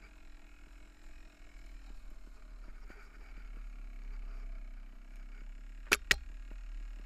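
Mountain bike rolling down a rough dirt trail, heard on a camera carried on the bike or rider: a steady low rumble of wind and rolling, with two sharp knocks close together near the end as the bike jolts over the ground.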